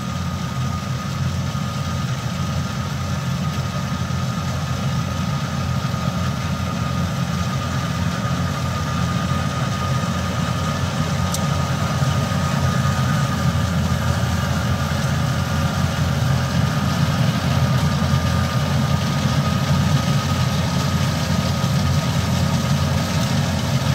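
Kubota combine harvester's diesel engine running steadily as the machine cuts rice, a dense drone with a thin steady whine above it, growing gradually louder as it comes closer.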